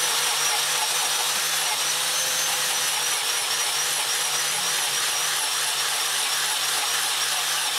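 Electric angle grinder fitted with a foam polishing pad, running at a steady speed while buffing a wooden knife handle. It makes an even whirring hiss with a high whine that wavers slightly.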